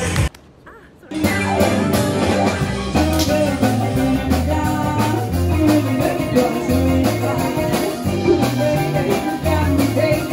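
Live band music led by electric guitar and piano over a bass line that steps from note to note, with some singing. It drops out briefly for under a second near the start, where the music cuts from one piece to another.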